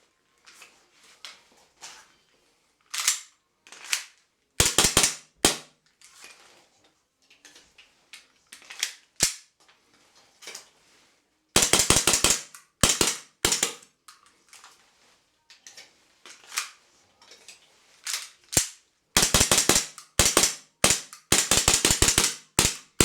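Hard plastic clicking and clattering in quick bursts of many sharp clicks, with quieter single clicks between them, as a Glock 17 magazine and a 3D-printed magazine pouch are handled.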